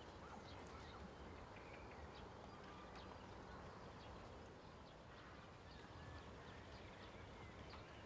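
Faint outdoor field ambience: a steady low wind-like rumble with scattered short, high chirps or ticks throughout.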